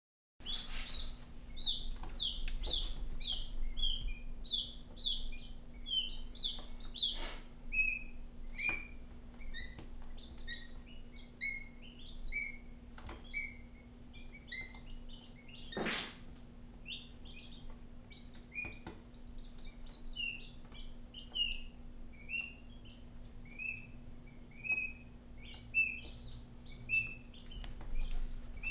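Quail chicks peeping: a continuous run of short, high chirps, several a second. A few knocks sound among them, one louder about halfway through.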